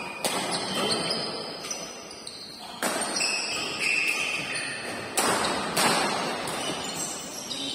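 Badminton rackets striking the shuttlecock in a rally, sharp cracks a second or two apart, ringing on in the hall's echo.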